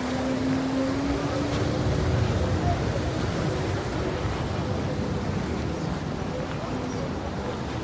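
A motor vehicle's engine hum rising slightly in pitch and fading within the first couple of seconds, over a steady low outdoor rumble of wind or distant surf.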